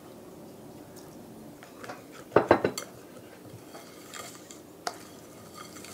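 Spoons knocking and clinking against a glass mixing bowl while a thick cream cheese filling is stirred, with a short flurry of knocks about two and a half seconds in and a single click near the end.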